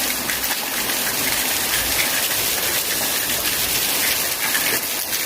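Steady rain falling, an even hiss with the patter of drops on surfaces.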